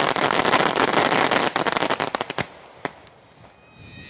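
Fireworks crackling: a dense, rapid run of sharp pops and cracks that stops about two and a half seconds in, followed by one last pop before it dies away.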